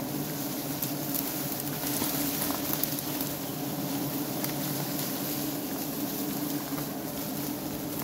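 Steady buzzing hum of a large colony of honey bees on an open hanging comb, with scattered faint ticks.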